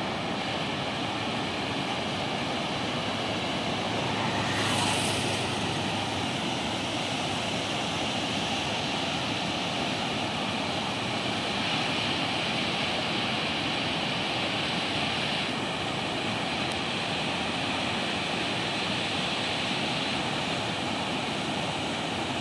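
Water rushing steadily over a low river weir and through rocky rapids below it, briefly louder about five seconds in.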